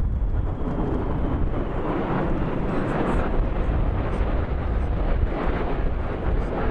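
Military jet aircraft flying over in formation: steady jet engine noise with a deep low end.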